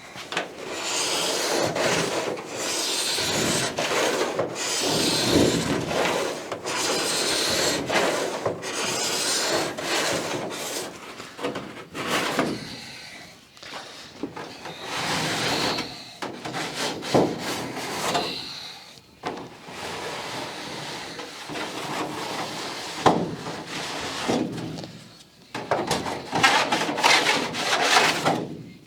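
Hand file rasping along the edge of an aluminium aircraft skin in slow, repeated strokes, about one every two seconds, with a few light knocks and pauses in the second half.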